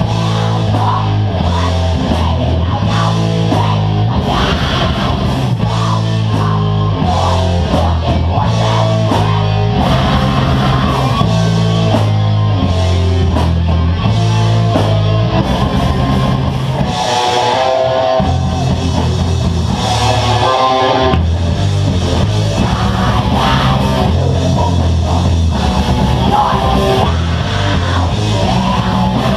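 A heavy rock band playing live and loud: distorted electric guitars, bass and a drum kit. The bass drops out briefly about seventeen seconds in, then the full band comes back.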